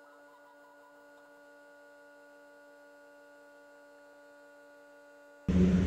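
Faint, steady electrical hum made of several constant tones, close to silence. Near the end it breaks off in a sudden jump to loud, low rumbling noise.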